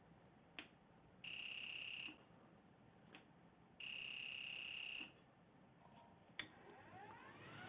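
Faint electronic beeps from a soldering rework station being set up to solder a reballed chip: two steady high-pitched beeps, the first just under a second and the second just over a second, with a few sharp clicks around them. Near the end a rising whine begins as the hot-air blower starts up.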